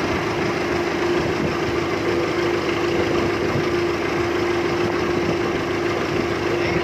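Small fishing boat's engine running steadily, a constant even hum.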